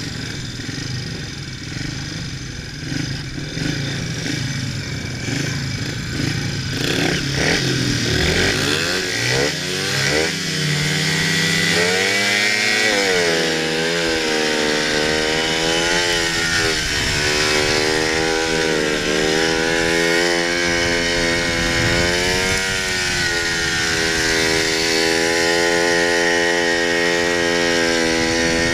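Speedway bike's 500 cc single-cylinder engine running hard on a dirt track. About a third of the way in it revs up steeply, then keeps rising and falling every few seconds as the throttle is shut off into the corners and opened again down the straights.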